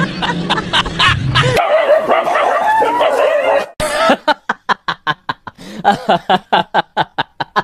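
A dog yelping and whining in wavering high cries, then a fast, even run of short yelps, about four or five a second.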